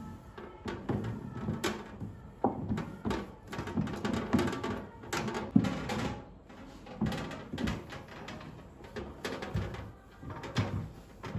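Irregular knocks, clicks and clatter of household items being handled and set down, several a second at times, with one sharper knock about five and a half seconds in.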